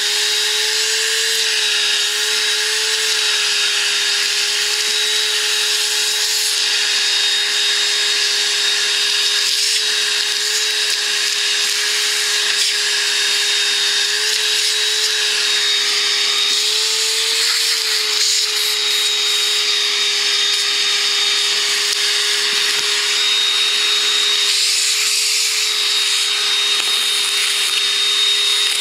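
Vacuum cleaner running steadily with a motor whine and a hiss of rushing air, sucking dust and lint out of an RV air conditioner's condenser coil. Its pitch rises briefly about a second in and again a little past the middle.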